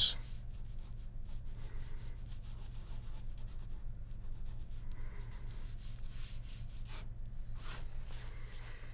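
Ballpoint pen scratching over drawing paper in quick sketching strokes, with a few louder strokes near the end.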